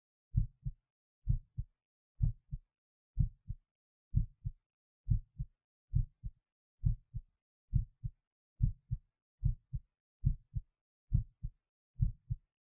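A person's heartbeat, each beat a close pair of dull lub-dub thumps, repeating steadily at about 66 beats a minute.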